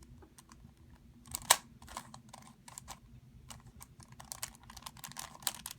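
Plastic puzzle cube being turned fast by hand to test corner cutting: a quick run of clicks and clacks as the layers snap round, with one louder clack about a second and a half in.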